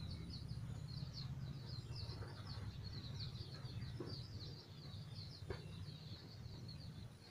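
Many young chicks peeping in a rapid, continuous chorus over a low steady hum, with two short clicks about four and five and a half seconds in.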